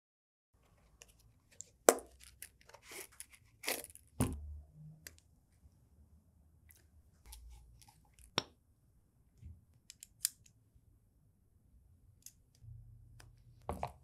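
Walther MultiTac multitool being handled on a tabletop: scattered sharp clicks and snaps, the loudest about two seconds in, with soft rustling between them.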